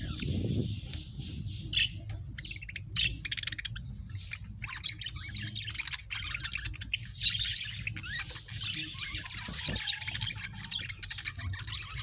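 A flock of budgerigars chirping and chattering, many short calls overlapping without a break, over a low background rumble.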